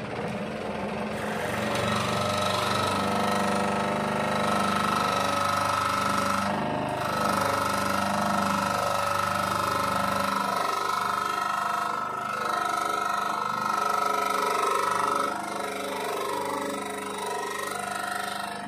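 Variable-speed scroll saw running, its reciprocating blade cutting through a hand-fed acrylic sheet with a steady mechanical whine, broken by a few brief dips.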